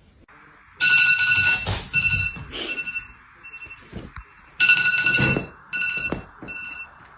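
Electronic ringing tone sounding in two bursts of several short rings each, about four seconds apart, over a steady hiss.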